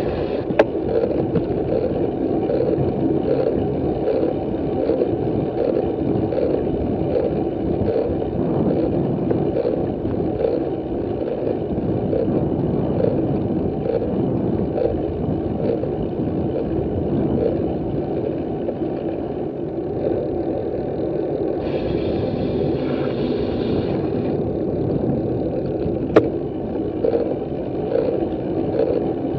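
Steady rumble of wind buffeting the microphone and tyre noise from a bicycle-mounted camera while riding, with a faint regular pulse. There is a brief hissier stretch a little past the middle and two sharp clicks, one just after the start and one near the end.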